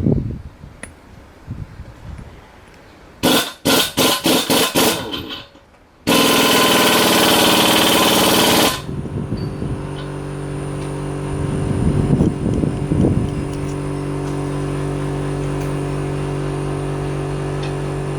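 Pneumatic impact wrench hammering in a rapid string of short bursts, followed by a loud steady hiss for about two and a half seconds. Background music then comes in with steady held tones.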